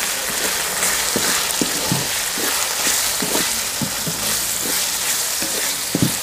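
Minced chicken frying in oil in an aluminium karahi, sizzling steadily, while a wooden spatula stirs it, scraping and knocking against the pan at irregular intervals.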